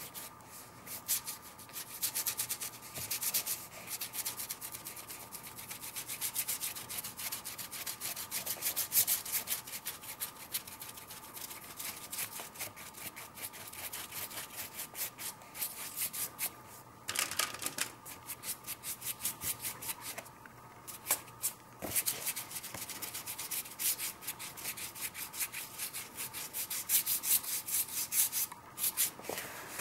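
Stiff nylon paintbrush scrubbing acrylic paint over textured paper in quick back-and-forth strokes, a dry scratchy rubbing that breaks off briefly a few times. The strokes lay a background layer and break up the paper's grain.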